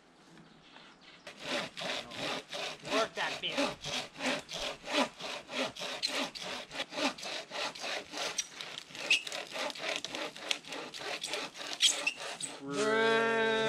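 Hand saw cutting through wood in quick, even strokes, about three or four a second. Near the end the sawing stops and a steady pitched tone comes in.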